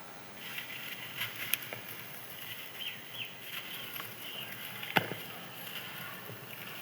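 Crispy dried sand-cement crumbling and crushing, a continuous gritty crackle of small cracks, with a sharp snap about five seconds in.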